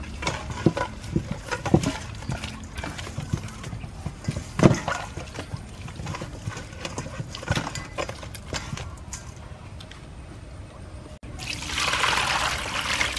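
Hands rubbing coarse salt into raw chicken skin in a stainless steel bowl: irregular wet rubbing, squishing and soft knocks. Near the end, water pours over the chicken to rinse off the salt.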